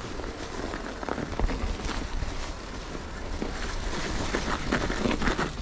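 Mountain bike on Schwalbe Ice Spiker studded tires rolling over snow and ice: a steady crunching with many short clicks and rattles from the tires and bike, and wind buffeting the microphone underneath.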